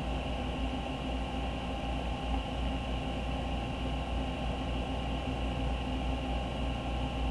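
Steady low background hum with a light hiss and a few faint constant tones; nothing starts or stops.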